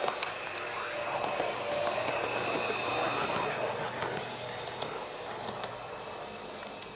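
Heljan Class 128 OO-gauge model parcels unit running slowly on DC: a gentle, steady singing motor note with wheels on the rails and a few faint ticks. It grows louder as the model passes close and fades as it runs away over the last few seconds.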